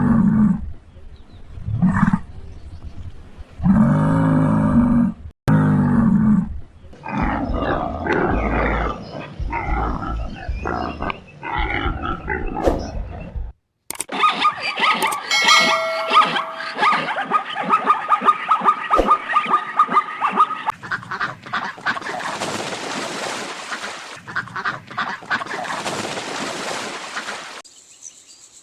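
Farm animals calling: a few loud, low, drawn-out calls in the first half, then, after a brief break, a busier stretch of many shorter, noisier animal calls.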